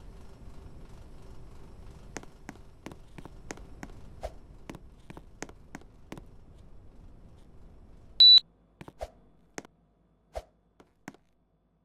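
LG split air conditioner's indoor unit running with a steady fan noise and faint hum, with scattered sharp clicks. About eight seconds in, it gives one short high beep, and the running noise stops at once. A few more clicks follow.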